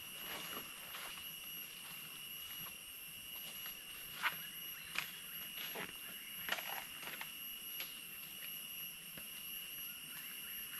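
A steady, high-pitched insect drone in the forest, with a handful of short calls falling in pitch between about four and eight seconds in.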